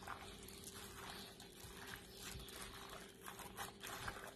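Plastic food-prep glove crinkling and raw chicken squelching in a yogurt-and-spice marinade as a hand mixes it in a glass bowl; faint, irregular soft rustles.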